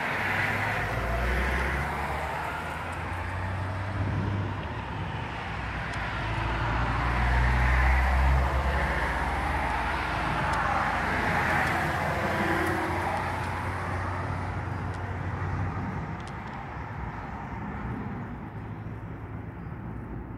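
Low rolling thunder rumbling, building to its loudest about eight seconds in and then dropping away, over the hiss of road traffic that swells and fades as cars pass.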